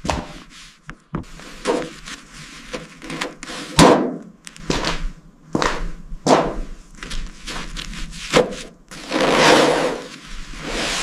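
A run of a dozen or so separate knocks and thuds, with a longer scraping noise about nine seconds in.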